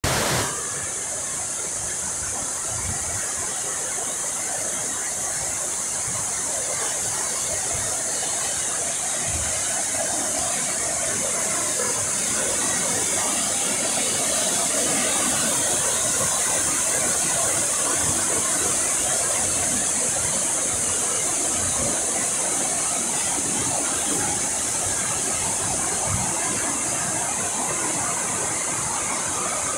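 Water cascading down a stepped stone weir: a steady rushing hiss that holds at an even level throughout.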